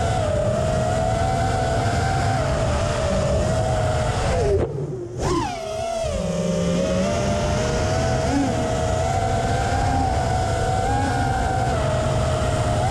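Brushless motors and 5-inch three-blade props of an FPV racing quadcopter whining steadily, the pitch wavering with throttle over a rush of prop wash and wind. A little under five seconds in the throttle is chopped: the whine drops away briefly, then rises back up.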